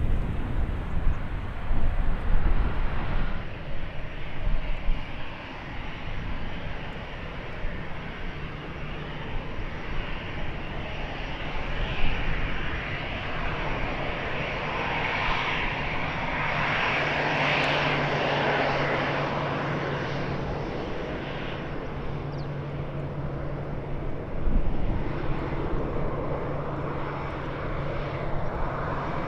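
Airliner engines passing, the noise building to a peak about two-thirds of the way through and then easing off, over a steady low hum. Wind buffets the microphone in the first few seconds.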